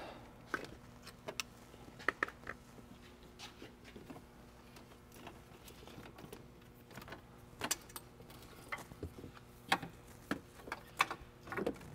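Scattered light clicks, taps and rustles of rubber coolant hoses and plastic hose clips being pulled off and handled in a diesel engine bay, over a faint steady hum.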